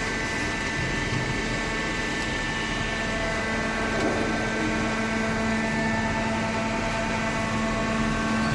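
Hydraulic cardboard baler running: a steady machine hum with several constant tones over a noisy wash, from its motor and hydraulic pump.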